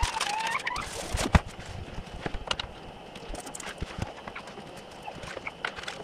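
Scattered clicks, taps and knocks of items being handled while packing laptops for shipping, the loudest a little over a second in. A short wavering squeak sounds in the first second.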